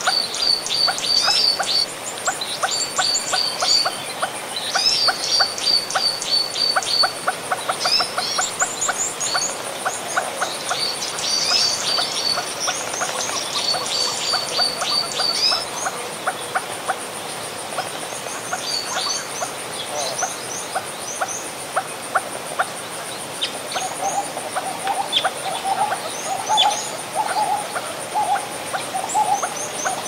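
Flowing stream under a dense mixed chorus of dry-season West African woodland birds. Rapid runs of repeated notes and high chirps fill the first half, with lower chattering calls near the end and a thin steady high tone.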